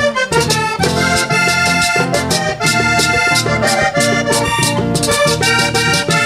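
Vallenato band playing an instrumental passage led by a Hohner button accordion, over electric bass and a hand drum.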